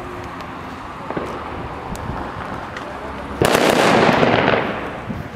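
Original Fireworks Silver Cracker-B, a small firecracker, going off with one sharp bang about three and a half seconds in, its sound hanging on for about a second before dying away.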